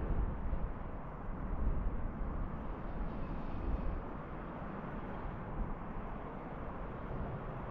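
Outdoor background noise: a steady low rumble that wavers unevenly, with no single distinct event standing out.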